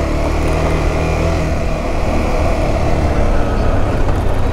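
Adventure motorcycle engine running at a steady pace while riding, with a steady rush of wind and road noise over it.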